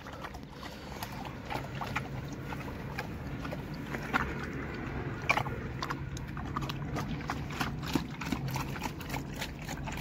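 A pig eating from a metal bowl: quick, irregular chomping and smacking clicks as it feeds, with no pause.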